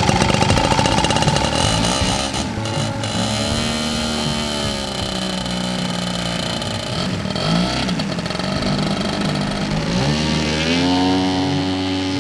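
Two-stroke ZDZ 80cc petrol engine of a scale RC Piper PA-18 Super Cub running at high power. Its pitch sags over several seconds, then climbs sharply near the end.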